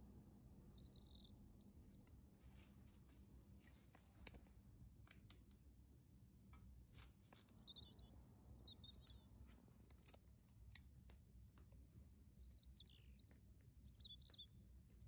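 Near silence with faint scattered clicks and crinkles from a plastic piping bag and parchment paper being handled while meringue is piped. A few faint, short, high bird chirps are heard over a low steady hum.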